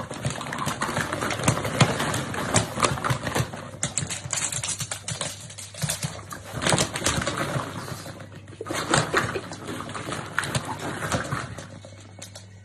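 Plastic ball-pit balls clattering and knocking together in irregular clusters as a pug burrows and rolls among them, tapering off near the end.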